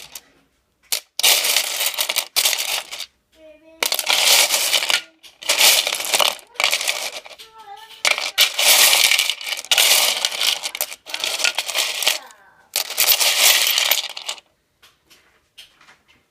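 Pieces of rough opal rattling and clinking together as the lot is handled, in about eight separate bursts of a second or so each.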